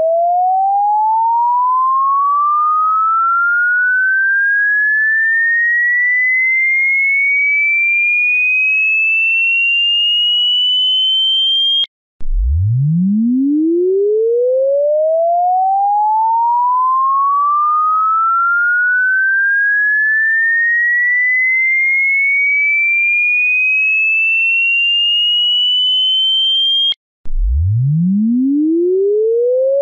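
A pure electronic tone sweeping steadily upward in pitch from a low hum to a high whistle. It cuts off abruptly and starts again from the bottom about twelve seconds in and once more near the end.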